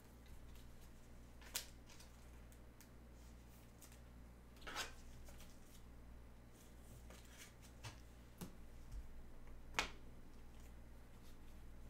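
Trading cards and their plastic holders being handled: a few short, faint clicks and snaps, the sharpest about a second and a half in and near the end, over a steady low electrical hum.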